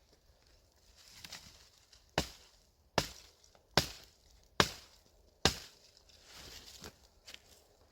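Firewood being chopped with a hatchet: five sharp, evenly spaced strikes a little under a second apart.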